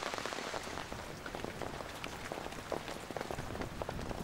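Rain pattering steadily, with many small drops dripping and ticking throughout.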